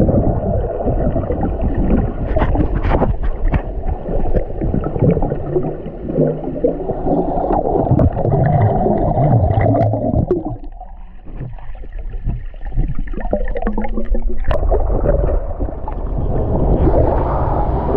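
Rushing water heard from under the surface: a muffled, dull rumble with gurgling bubbles, easing off for a moment a little past the middle.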